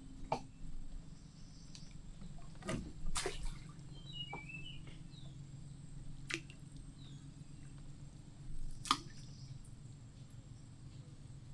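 Water dripping and splashing in about half a dozen sharp, irregular drops and taps over a steady low hum, with a few short high chirps of birds or insects.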